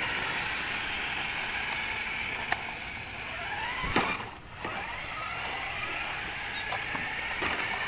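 Toy radio-controlled car's small electric motor whining, its pitch gliding up and down as it speeds up and slows, over a steady hiss of wheels on pavement. A sharp click about two and a half seconds in and a knock at about four seconds.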